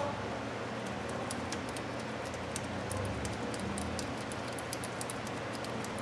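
Faint small metallic clicks and rustling as a nut is turned by hand onto the starter's ground-wire stud, over a steady low hum.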